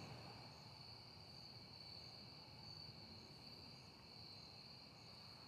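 Near silence, with a faint steady high-pitched tone.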